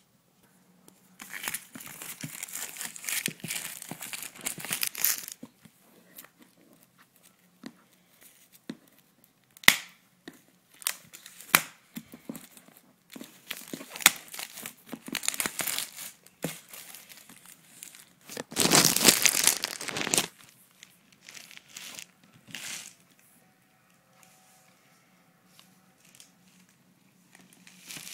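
Packaging being opened and handled: crinkling and rustling in irregular bursts, with scattered sharp clicks and knocks. The loudest, longest burst comes about two-thirds of the way through, and the handling gets quieter near the end.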